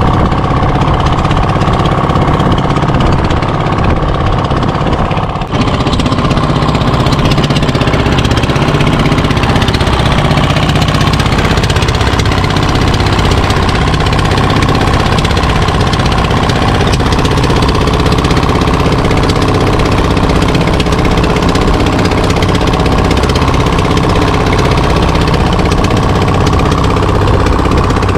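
A fishing boat's diesel engine running steadily while trolling, with a brief dip in level about five seconds in.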